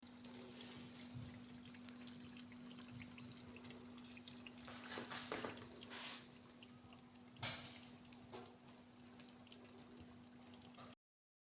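Faint dripping and small liquid clicks over a low steady hum, with one sharper tap about seven and a half seconds in.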